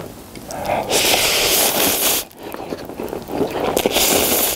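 A man slurping thick spicy Buldak stir-fried noodles from a cup close to the microphone: two long, loud slurps with a brief pause between them.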